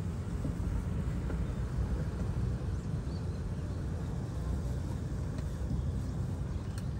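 Steady low rumble of outdoor background noise, with a few faint clicks and no distinct event standing out.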